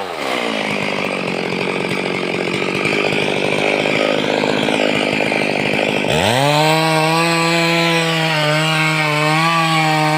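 Stihl two-stroke chainsaw cutting through teak wood under full throttle, the chain's rasp in the wood rough and steady for about six seconds. The engine note then drops briefly and climbs back to a high, clean, slightly wavering whine as the saw runs free of the cut.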